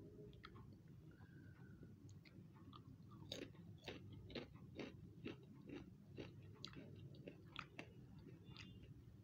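Faint crunching of homemade fried potato chips being chewed. The crunches are sparse at first, then come about two a second from about three seconds in, over a low background hum.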